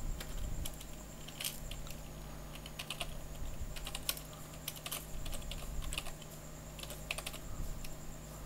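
Typing on a computer keyboard: irregular runs of key clicks, over a steady low hum and a faint high whine.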